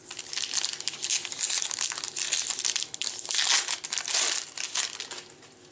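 Plastic trading-card pack wrapper crinkling and crumpling in uneven bursts as it is handled, dying away near the end.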